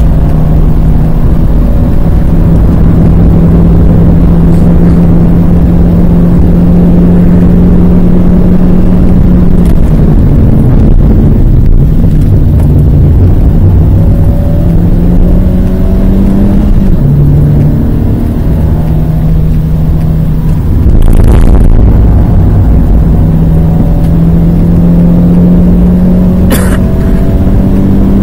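Renault Twingo's 1.2-litre four-cylinder engine heard from inside the cabin under hard track driving. It climbs steadily in pitch, falls away about ten seconds in as the car slows, then pulls again with a gearchange drop a little after halfway and another climb near the end. A brief rush of noise comes about 21 seconds in, and a single sharp click near the end.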